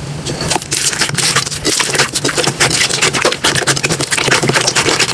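Slime being squeezed, pressed and stretched by hand, giving a dense, continuous crackling and popping.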